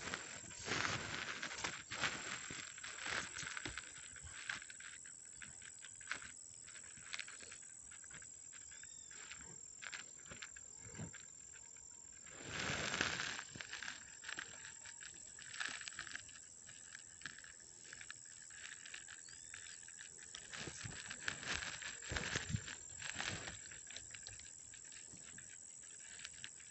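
Faint outdoor bank-side ambience: a steady drone of insects, with scattered clicks and rustles of grass and phone handling. About thirteen seconds in there is a brief, louder rustle.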